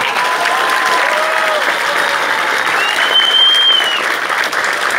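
Guests applauding loudly and cheering, with a single long high whistle about three seconds in.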